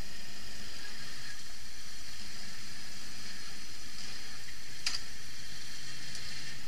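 A steady hiss with an ATV engine running faintly and low beneath it as the quad crawls over rocks, and one sharp click about five seconds in.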